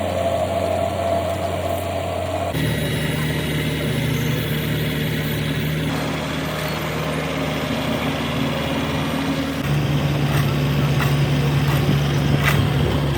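Engines of heavy road construction machinery running steadily. The engine sound changes abruptly about two and a half, six and ten seconds in, as one machine gives way to another.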